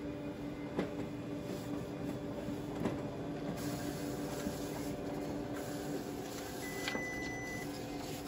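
Konica Minolta multifunction office printer running a print job: a steady mechanical hum with a few sharp clicks as pages feed out, and a brief high steady tone about two-thirds of the way through.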